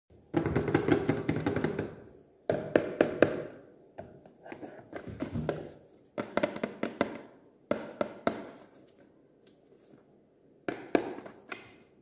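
Hands handling a small cardboard box: taps, knocks and rubbing on the cardboard in about five short bursts with pauses between them, as it is picked up and turned over.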